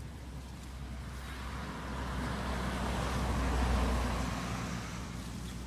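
A motor vehicle passing by, its engine and tyre noise swelling to a peak a little past the middle and then fading away.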